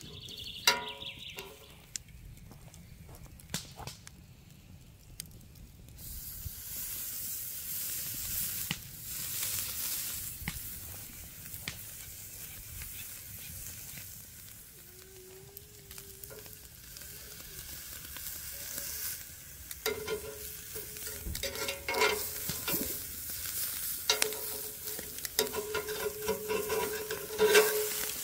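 Steak sizzling on a charcoal grill grate, with a steady hiss that starts suddenly about six seconds in when the raw meat goes down. Metal tongs click against the grate at the start and clink and scrape on it near the end as the steak is turned.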